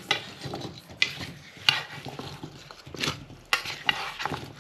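Kitchen clatter: dishes and utensils knocking and clicking, about four or five sharp clinks spread irregularly, over a faint steady hiss.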